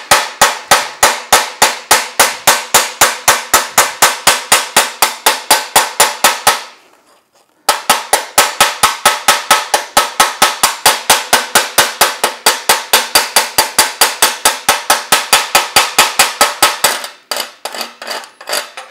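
Farm fencing hammer rapidly chipping slag off an E6011 stick weld on steel plate: sharp metallic strikes at about six a second, stopping for about a second partway through, then ending with a few scattered taps. The E6011 slag doesn't come off easily.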